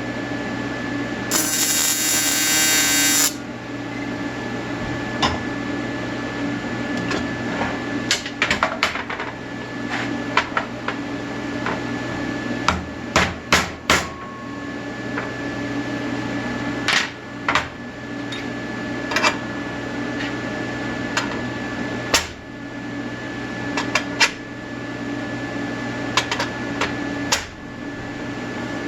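A two-second electric welding arc buzz about a second in, then a steady hum with scattered sharp clicks and knocks.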